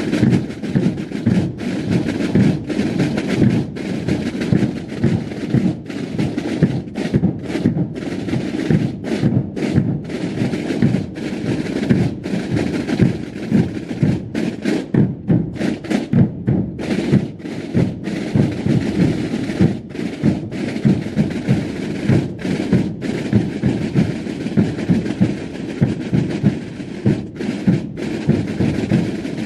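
Massed Holy Week drums and bass drums played together in a march, a loud, dense, steady beat of many drums.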